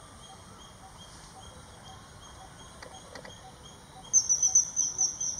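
Common kingfisher giving a rapid run of shrill, high piping calls as it flies off its perch, starting about four seconds in, several calls a second, each dropping slightly in pitch. Before that, only faint, regular ticking in the background.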